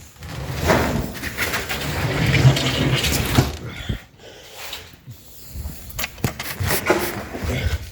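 Irregular knocks, scrapes and rustling of objects being handled and moved, busiest in the first few seconds and then a few scattered clicks.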